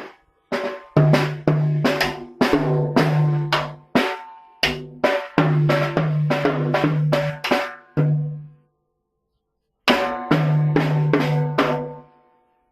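Drum kit struck in loose, uneven hits, each ringing on briefly, with a pause of about a second near the nine-second mark before the hits resume.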